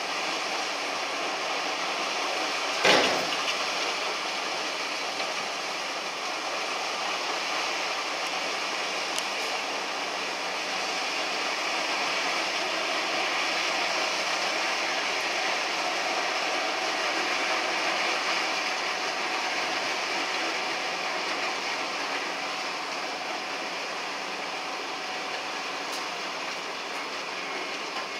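Ice truck's loading machinery running steadily as ice is fed through the hopper and chute to a fishing boat, with one sharp clank about three seconds in.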